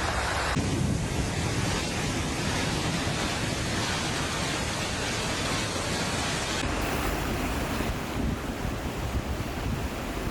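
Rushing floodwater, a steady noisy roar, with wind buffeting the microphone. The sound changes abruptly about half a second in and again about two-thirds of the way through, where clips are cut together.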